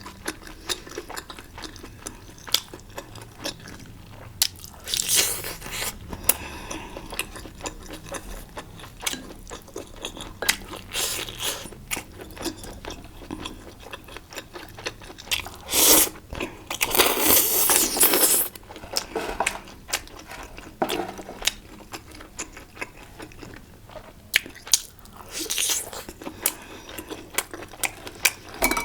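Close-miked eating: chewing, biting and crunching with wet mouth clicks throughout, and several louder noisy bursts, the longest lasting about a second and a half in the middle.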